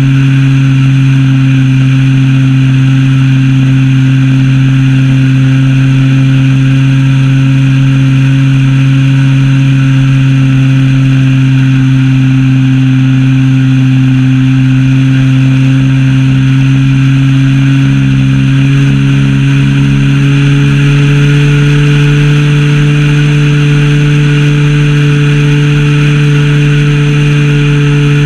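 Zenoah ZP 20 two-stroke gas engine of a Super Senior 80 RC plane running steadily in flight, heard up close from a camera strapped to the airframe. Its pitch steps up slightly a little past halfway.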